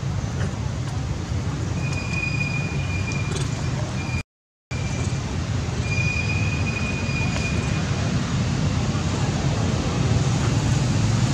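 Steady outdoor background rumble, like distant traffic, with two long, thin, high whistled notes about two and six seconds in. The sound cuts out completely for a split second a little after four seconds.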